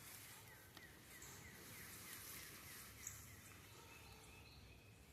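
Faint outdoor background with distant birds calling: a quick run of short falling chirps about a second and a half in, and a few brief high whistled notes.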